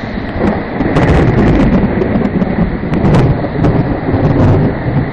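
Thunder rumbling over steady heavy rain, the low rumble swelling about a second in and holding for several seconds.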